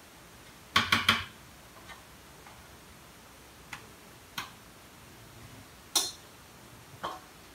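Sharp clicks and knocks of kitchen utensils and containers being handled: a quick run of three about a second in, then single knocks spaced a second or two apart.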